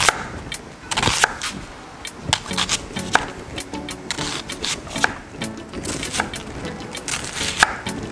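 Chef's knife slicing through an onion and knocking on a wooden cutting board, a series of sharp cuts at an uneven pace, with background music underneath.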